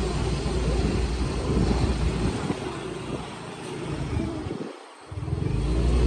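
Motorcycle engine running while riding, with a low rumble that fades and drops away briefly about five seconds in, then comes back.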